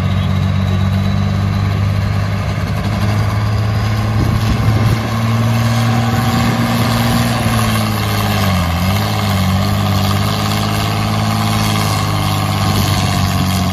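Pulling tractor's diesel engine running hard at steady high revs under load as it hauls the weighted sled. Its pitch dips briefly about two-thirds of the way through, then climbs back.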